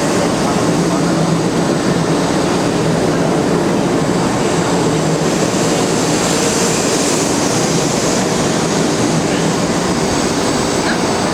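Train running with a steady, even rushing and rumbling noise.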